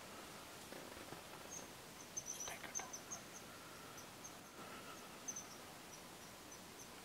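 Quiet woods ambience: a run of short, faint, high-pitched chirps from a small creature, repeating at uneven intervals, with a few soft clicks and knocks about two seconds in.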